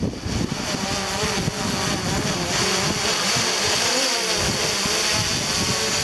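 DJI Mavic Pro quadcopter's propellers whining overhead, the pitch wavering as the motors work, with gusty wind rumbling on the microphone underneath.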